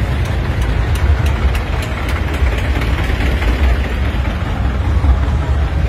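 Diesel tractor engines running close by with a steady low throb.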